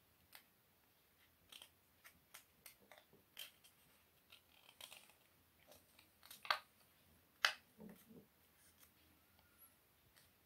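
Paper being folded and creased by hand: faint, scattered crinkles and rustles, with two sharper crackles a little past the middle.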